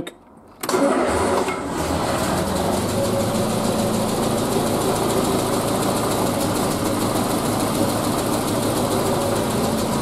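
Triumph Spitfire four-cylinder engine with twin SU carburettors started warm without choke: it fires about a second in, catches at once and settles into a steady idle at 700 to 800 RPM. It now runs on all four cylinders, with a slight splashy misfire at idle that the owner puts down to one side running a bit lean.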